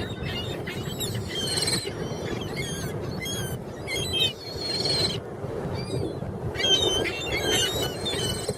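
A crowd of seagulls calling over one another as they compete for thrown food, with many short squawks that rise and fall in pitch and overlap.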